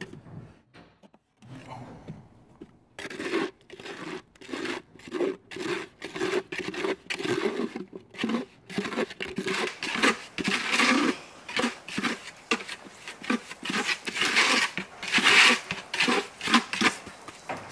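Jahn masonry repair mortar being mixed by hand with water in a small plastic bucket: quick, uneven gritty strokes, about two a second, starting about three seconds in and growing denser.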